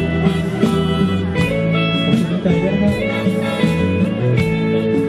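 Live luk thung band music with a steady beat, an instrumental passage without singing.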